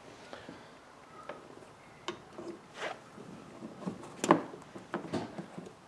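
Scattered light clicks and taps from pop rivets being handled and pushed into the holes of a plastic Scotty rod holder base, with one sharper knock about four seconds in.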